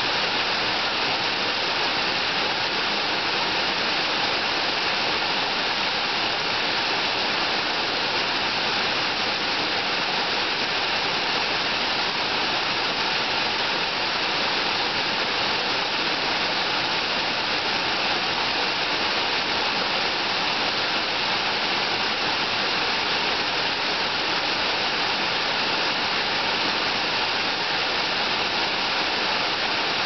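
Waterfall splashing into a shallow pool: a steady, unbroken rush of falling water.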